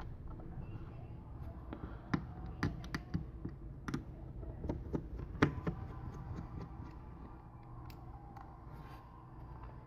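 Light clicks and taps of small tools and parts being handled while disassembling a tablet, clustered in the first half and thinning out later.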